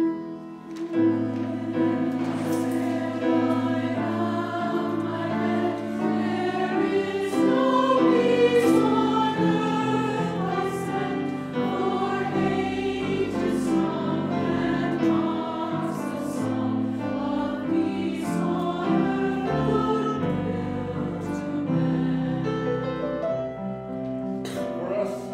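Mixed-voice church choir singing in parts, holding sustained chords that change every second or two; the full choir comes in about a second in.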